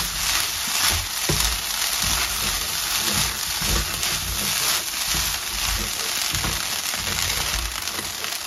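Prawn fried rice sizzling in a non-stick wok while a wooden spatula stirs and tosses it, with irregular soft knocks and scrapes of the spatula against the pan over a steady hiss.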